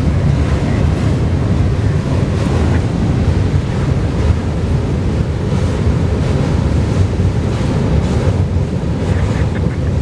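Freight cars of a Florida East Coast Railway train rolling across a steel bascule railway drawbridge: a steady, low rumble of wheels on rail.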